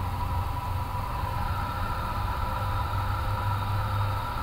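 Steady flight-deck noise of an Airbus A350 as engine number 2 runs through its auto start just after light-up: a low drone with a few steady whining tones and a hiss of air.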